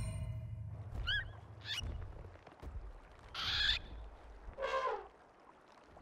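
Cartoon bird calls: two short warbling chirps, then two longer squawks, as the end of the music fades out.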